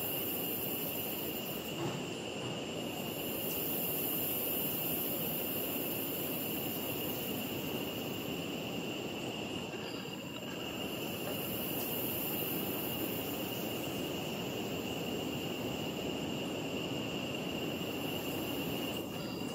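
Outdoor ambience of insects: a very high shrill buzzing that breaks off and starts again every few seconds, over a steady high whine and a steady rushing noise.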